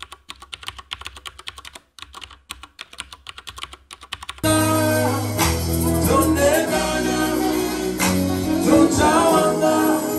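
A quick run of ticking clicks from an intro sound effect, then, about four and a half seconds in, a live band cuts in loud: a male singer over bass guitar and drums.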